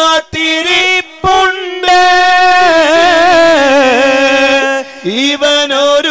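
A man singing a Malayalam Islamic devotional song in a melismatic style, after short phrases drawing out one long, wavering note that slides downward, then starting a new phrase near the end.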